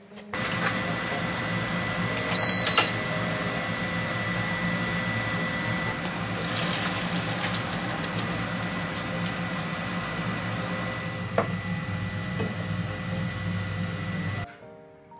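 A kitchen appliance runs with a steady hum and a thin high whine, then cuts off suddenly near the end. A brief louder tone sounds about two and a half seconds in, a short rush of water comes around the middle as boiled udon is drained from a pot into a strainer, and there is a sharp click later on.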